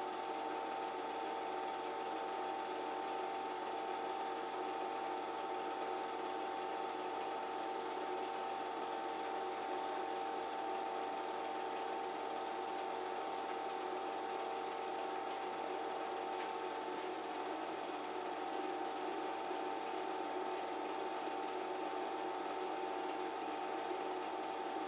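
Home-movie film projector running: a steady, even mechanical noise with a constant tone.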